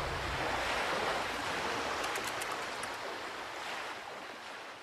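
Rushing, churning sea water, a steady noise that fades out near the end.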